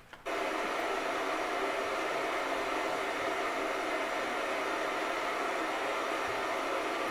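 Steady white-noise hiss that switches on suddenly about a quarter second in and holds at an even level. It comes from a courtroom sound-masking system, the kind switched on to keep bench conversations from being overheard.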